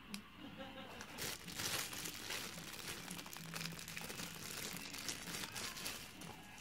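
Thin clear plastic bag crinkling and crackling as hands squeeze and turn it. The crinkling grows dense about a second in and goes on until near the end.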